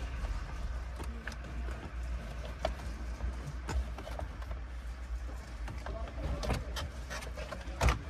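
Hard plastic steering-column shroud being handled and fitted around the column: scattered light clicks and knocks of plastic on plastic, with a sharper knock near the end.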